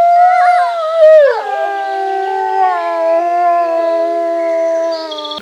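Dogs howling: one long wavering howl that slides down in pitch about a second and a half in, then several lower howls held together and overlapping.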